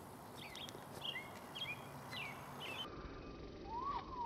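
Wild birds calling: a series of short, high chirps during the first three seconds, then a lower call that rises and falls near the end, over a steady low outdoor background.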